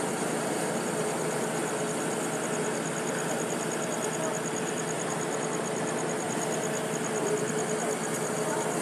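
An engine running steadily, a constant drone with a fast, even high-pitched ticking over it.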